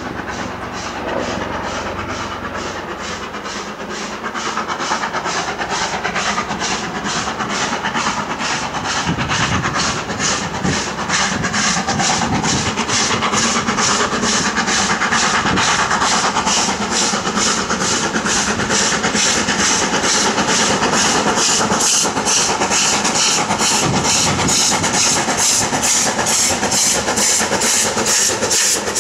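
Steam locomotive hauling a passenger train and drawing closer, its exhaust beats coming steadily and regularly and growing louder, with steam hissing from around the cylinders.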